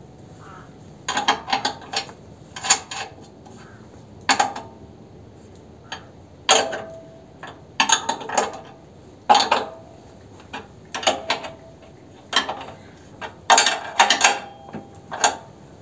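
Wrench turning the adjusting nuts of a minitractor's engine-mount platform to tension the drive belts: short bunches of metallic clicks and clanks, some ringing briefly, every second or two.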